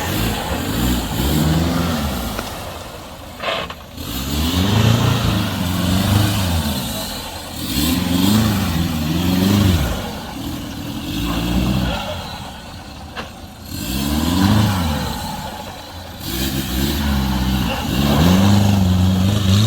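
Off-road 4x4's engine revving up and dropping back again and again as it works through a trial section, with a couple of short sharp knocks in between.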